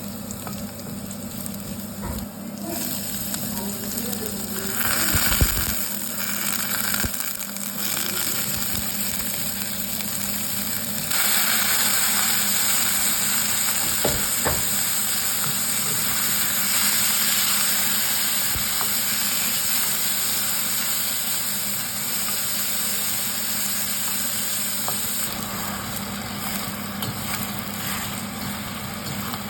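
Food sizzling and frying in a hot pan, with occasional knocks of stirring; the sizzle turns louder about eleven seconds in and holds steady.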